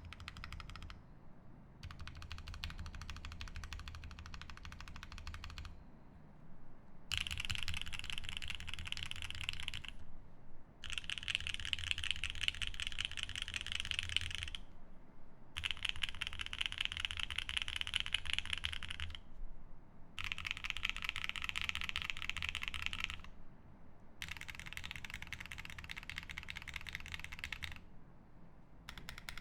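Fast typing on a Geon F1-8X mechanical keyboard with lubed OP Black switches in an aluminium plate and GMK keycaps. It comes in runs of three to four seconds separated by short breaks of about a second.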